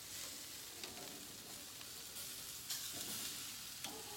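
Pork chops sizzling on the hot grates of a gas grill, a steady hiss, with a few sharp clicks of metal tongs as the chops are turned, near the end.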